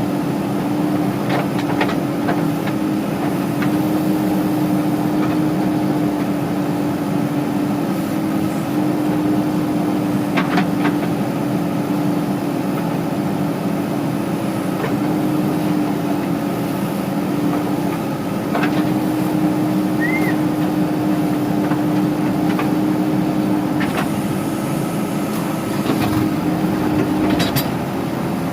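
Heavy diesel engines of a backhoe loader and a tractor running steadily, with scattered short clicks and knocks over the top.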